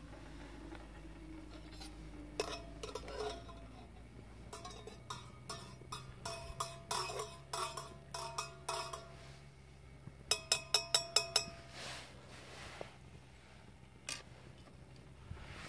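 A metal spoon stirring tea in a stainless steel camping mug, clinking against the ringing sides over and over, with a quick run of about eight clinks about two-thirds of the way through.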